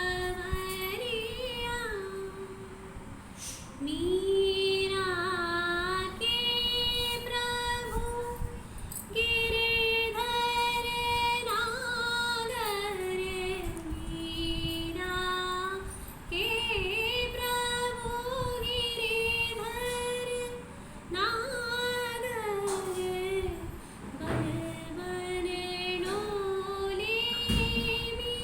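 A high female voice singing a slow melody solo, holding long notes with gliding, ornamented turns between phrases.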